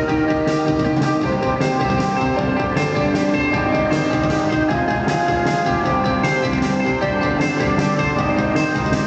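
A post-punk band playing live, with guitar over a steady drum beat.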